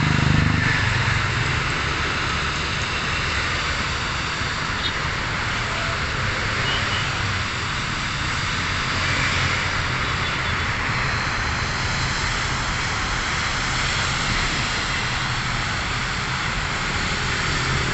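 Distant aircraft engine noise at an airport: a steady low rumble with a broad hiss over it.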